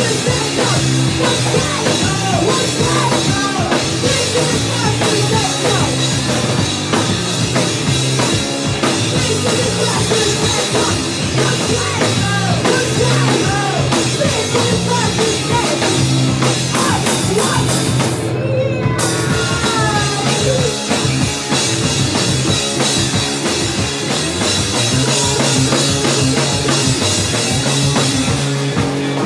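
Live punk rock band playing loud: distorted electric guitar, bass guitar and drum kit, with a woman singing. The band makes a brief stop about two-thirds of the way through, then comes straight back in.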